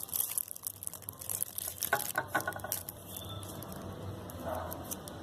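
Homemade slime being worked in a shallow dish: a run of small wet clicks and squishes during the first three seconds, then only scattered ticks.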